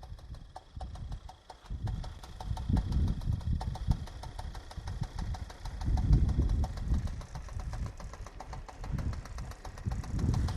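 Suzuki Address 110's two-stroke engine running, its low rumble swelling in loudness a few times. It runs without the metallic knock it had before the repair: that knock came from the generator rotor working loose on a stripped crankshaft thread, which has since been re-threaded and tightened.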